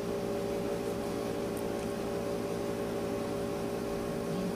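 Steady room hum and hiss: a constant drone with a few held tones, unchanging throughout, with no distinct events.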